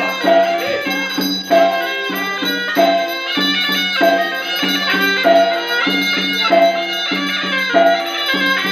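Suona, the Chinese double-reed shawm, playing a nasal, wavering melody of short phrases.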